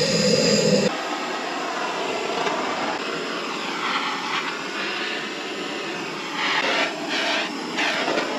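Aerosol spray can hissing in short bursts at the elbow of a tent wood stove's chimney pipe, several quick bursts near the end, over a steady rushing hiss.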